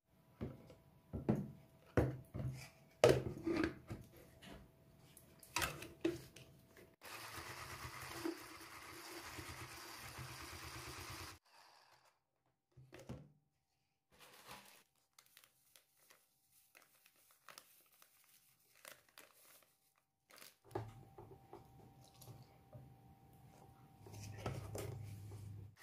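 Knocks and clatter of a plastic measuring jug, its splatter-guard lid and a wire whisk being handled, then a few seconds of steady scraping as butter is whisked in the plastic jug.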